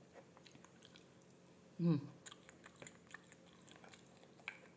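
Close-up chewing and small mouth clicks from a person eating rice and fried tempe with her fingers. A short voiced 'mm' a little under two seconds in.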